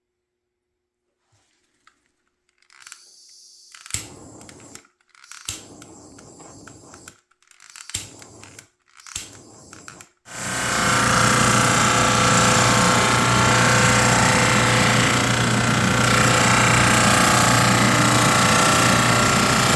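Four sharp knocks with rustling handling noise between them, then a drum sander starts about ten seconds in and runs steadily with a constant hum.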